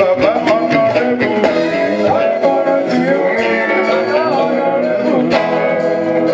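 Live band music with electric guitars playing, and a voice singing over it.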